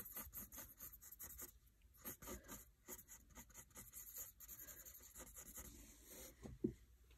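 Pencil scratching on notebook paper in quick, short back-and-forth strokes as hair is shaded in, faint and fast. A single brief soft thump about six and a half seconds in.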